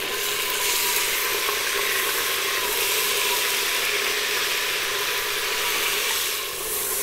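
Mutton pieces sizzling steadily in hot sunflower oil on high heat in an open stainless-steel pressure cooker, browning, while being stirred with a wooden spoon.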